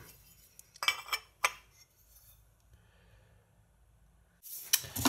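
A few short, light metallic clinks about a second in as moped engine crankcase halves are handled, then a breath out near the end.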